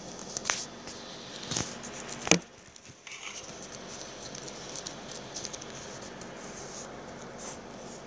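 Paper being handled and pressed flat by fingers: soft rustling and scratching over a steady hiss, with three sharp clicks in the first two and a half seconds, the last the loudest.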